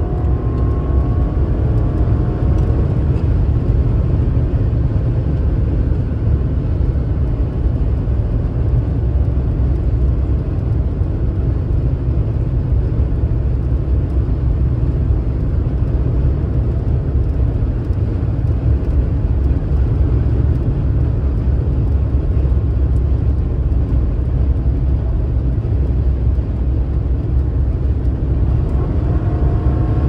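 BMW 760 running at autobahn speed: a steady, loud low rumble of engine and road noise. The engine note rises as the car accelerates about the first few seconds and again near the end.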